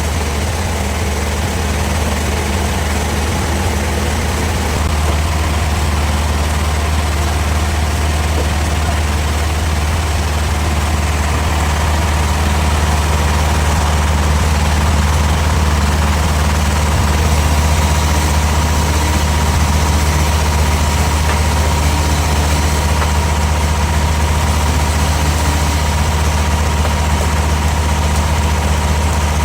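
Sawmill machinery running with a steady, loud low drone, and a thin steady whine joining about halfway through.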